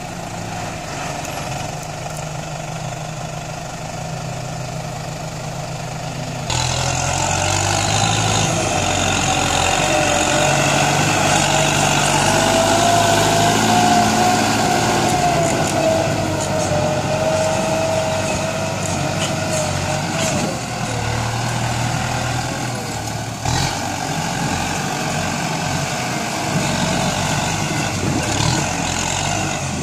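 Kubota farm tractor's diesel engine running as it pushes soil with a front dozer blade. It gets louder about six seconds in, with a whining tone that rises and falls.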